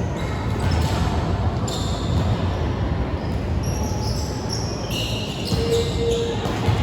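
Volleyball being played on an indoor court: thuds of the ball over a steady hall rumble, with short high squeaks on the court floor, most of them a little past the middle.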